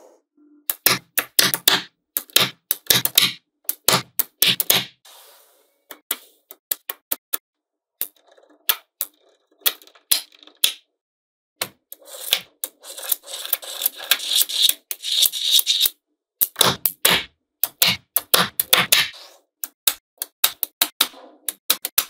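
Small magnetic balls clicking and snapping together as strips of them are pressed onto a slab of balls: quick, irregular runs of sharp clicks with short pauses, packed into a dense clicking rattle a little past halfway.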